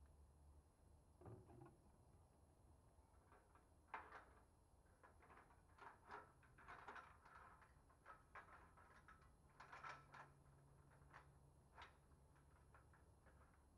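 Near silence with a faint low hum and scattered faint clicks and taps, the sharpest about four seconds in.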